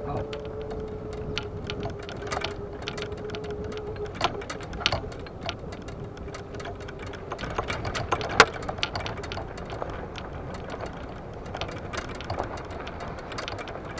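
Golf cart driving, with a steady whine that drops away about four seconds in and comes back briefly, over continual clicking and rattling of golf clubs in the bag and a sharp knock about eight seconds in.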